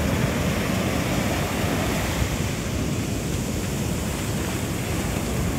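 Surf from a big set of ocean waves breaking on the beach, a steady wash, with wind rumbling on the microphone.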